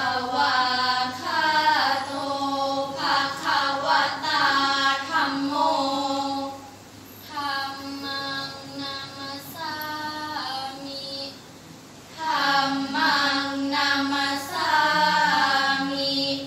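A team of five girls chanting together in the Thai sarabhanya melody, a sung Buddhist recitation in praise of the Triple Gem. It comes in three long phrases with short pauses between them.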